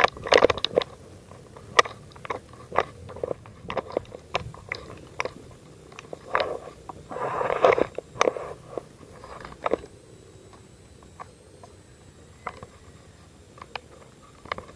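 Footsteps crunching over dry leaves and debris at an irregular pace, with sharp clicks and knocks scattered through and a denser stretch of crunching near the middle.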